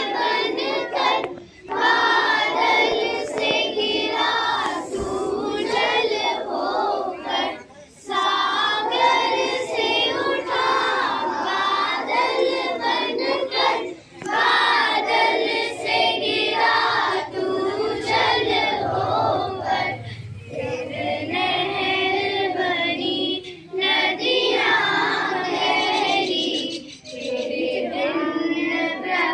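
A group of schoolchildren singing a Hindi song together in chorus, the phrases broken by short pauses for breath.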